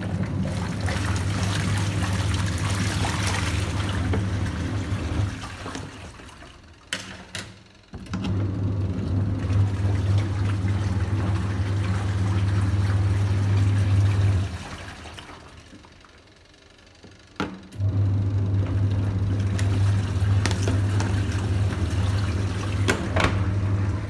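Godrej twin-tub washing machine's wash motor humming in runs of about six seconds, each followed by a stop of about three seconds, with water sloshing in the tub while it runs. This is the wash cycle's run, pause and reverse agitation. A few sharp clicks come mostly in the pauses.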